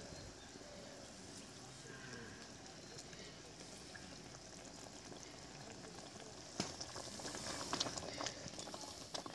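Mustard-and-poppy-seed fish gravy bubbling faintly at a boil in a pan. About two-thirds of the way in, a spatula starts moving through it, with light scrapes and ticks against the pan.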